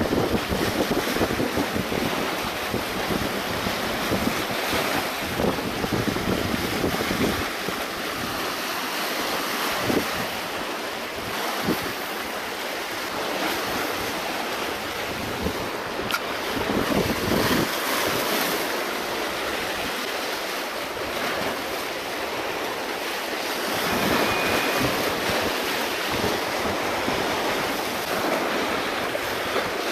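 Sea waves washing and breaking over the rocks of a stone jetty, rising and falling, with wind buffeting the microphone.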